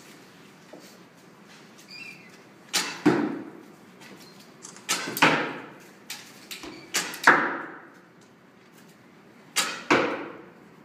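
Arrows shot four times from a traditional recurve bow, about every two to two and a half seconds. Each shot is a pair of sharp cracks about a third of a second apart, with the hall echoing after each.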